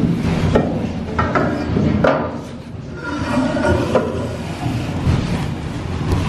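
A cast bronze propeller-shaft housing knocking and scraping as it is pushed and twisted through the shaft hole in a fibreglass hull, several sharp knocks over a steady low rumble.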